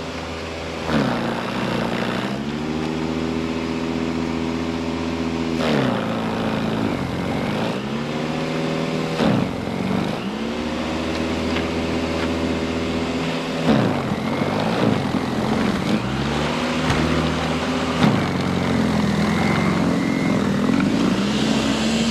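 Greenworks 120-volt 13-amp electric snow blower running as it clears snow. The motor's whine sags in pitch and climbs back several times as the auger bites into the snow and recovers.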